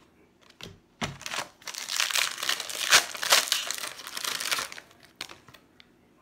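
Trading card pack wrapper being torn open and crinkled by hand: a dense crackling rustle that starts about a second in and lasts about three and a half seconds. A few light clicks of card handling come just before and after it.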